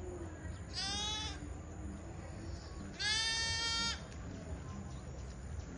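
A lamb bleating twice in a high voice: a short bleat about a second in, then a longer, louder one around the three-second mark.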